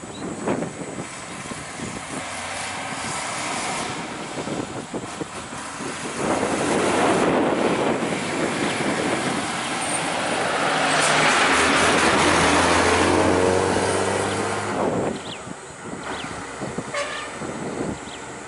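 Tata bus diesel engine pulling away and driving past close by, swelling as it comes alongside and dropping away about three-quarters of the way through.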